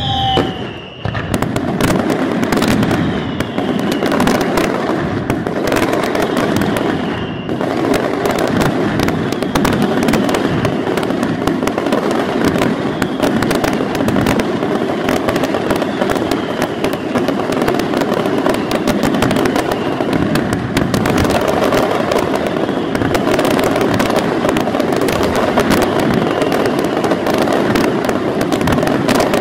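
Daytime fireworks going off in a dense, unbroken barrage of rapid bangs and crackling. A few falling whistles sound among them in the first seven seconds or so.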